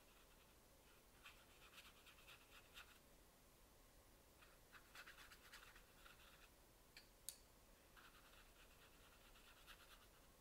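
Faint scratching of a paintbrush stroked across watercolor paper, laying a wash. The strokes come in three spells of quick short strokes, with a single sharp tick about seven seconds in.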